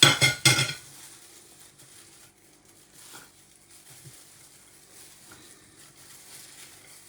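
Kitchenware clattering: a quick run of three or four ringing clinks and knocks in the first second, then faint scattered handling knocks over a low steady hum.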